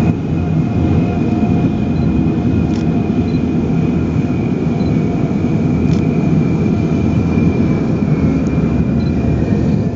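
Tracked military all-terrain vehicles (bandvagnar) driving past: a loud, steady low engine drone with a thin, steady high whine above it.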